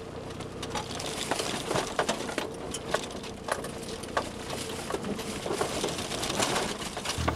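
Vehicle driving slowly over a rough gravel forest road: a steady low engine hum with irregular crunches and sharp clicks from gravel and stones under the tyres.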